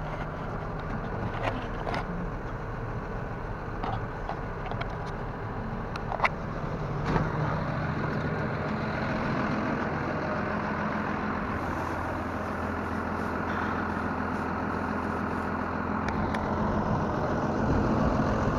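John Deere tractor's diesel engine running steadily, with a few sharp clicks and knocks over it.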